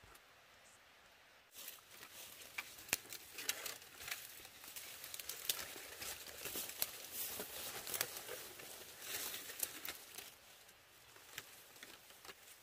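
Dry leaf litter and twigs rustling and crackling as they are handled, with many small sharp snaps. It starts about a second and a half in and dies down near the end.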